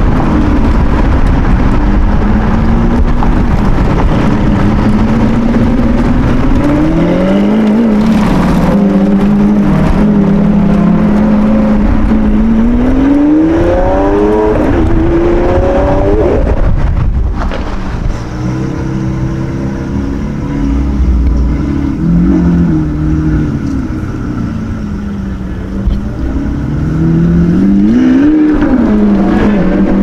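High-performance car engines revving and accelerating, the pitch climbing and falling again and again. The engine sound breaks off abruptly about halfway through. It stays lower and quieter for several seconds before climbing and falling once more near the end.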